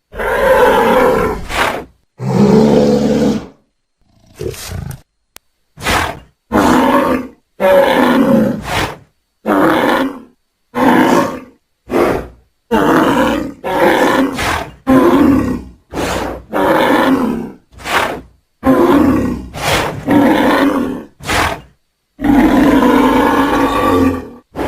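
Bull bellowing in a long run of short, loud calls, roughly one a second, with dead silence between them. A longer, drawn-out bellow comes near the end.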